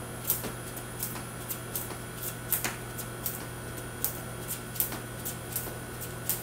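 A long cord used as a skipping rope slapping the concrete floor at each turn, mixed with sneakers landing, in a steady series of sharp slaps about three or four a second.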